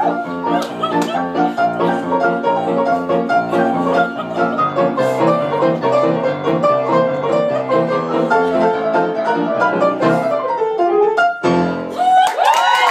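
Grand piano played four-hands in fast, dense passages, ending on a final chord about eleven and a half seconds in. The audience then breaks into whooping cheers and applause.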